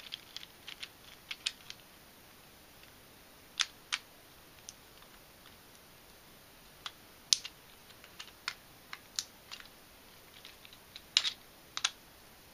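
Scattered sharp plastic clicks and taps from 3D-printed twisty-puzzle pieces being handled and fitted together while a screwdriver tightens a screw into the puzzle's core. The loudest clicks come about seven and eleven seconds in.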